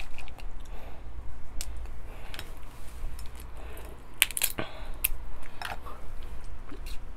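Snow crab leg shells cracking and clicking as they are snapped and pulled apart by hand, with a louder cluster of cracks about four seconds in.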